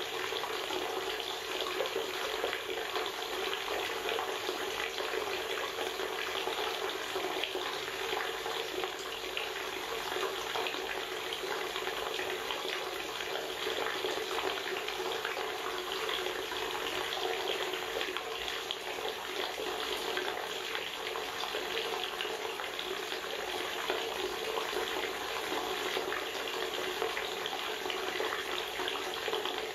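Steady underwater water noise: an even hiss that holds without a break.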